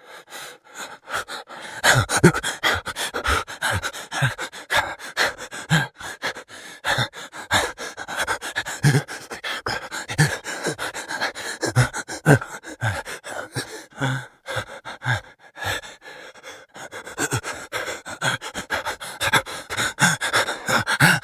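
A person breathing fast and heavily in panic: rapid, noisy in-and-out breaths, with a voiced gasp every second or two.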